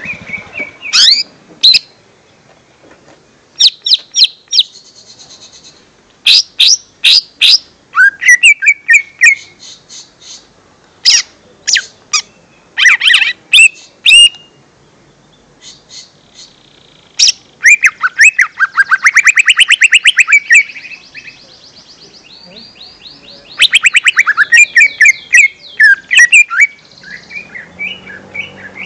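Lesser green leafbird (cucak ijo mini) singing loudly: a varied run of sharp chirps and whistled sweeping notes in short bursts with pauses, breaking into fast chattering trills in the second half.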